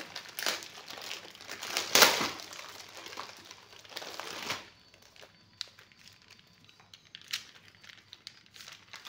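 Plastic packaging crinkling and rustling as hands pull strips of sachets out of a clear plastic bag, loudest about two seconds in. After about four and a half seconds it drops to a few faint rustles and ticks.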